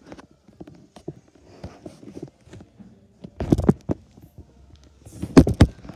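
Small plastic LEGO pieces and their plastic bag being handled: scattered light clicks, with two louder bursts of rattling and crinkling about three and a half and five and a half seconds in.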